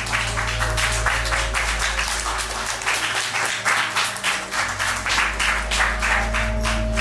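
Electronic ambient music: a steady low drone with a held mid tone, overlaid by a dense, irregular patter of sharp clicks and crackles, several a second.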